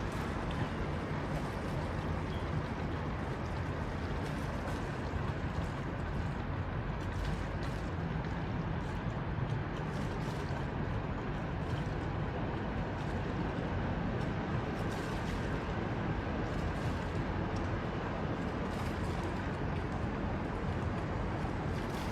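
Steady wash of water and wind noise aboard a sailboat, with no distinct events.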